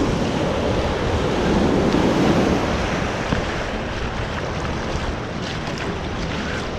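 Shallow surf washing in over the sand around the ankles, with wind buffeting the microphone; the wash swells about two seconds in and then eases.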